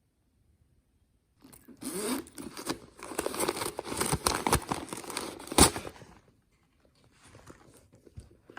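Rustling, scraping handling noise, like material being torn or pulled, starting about a second and a half in and running for about five seconds with many sharp clicks, the loudest near the end, then fainter rustling.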